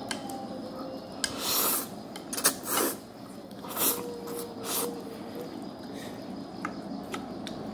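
Black bean sauce noodles being slurped with loud sucking slurps, four or five in the first five seconds, then a few light clicks.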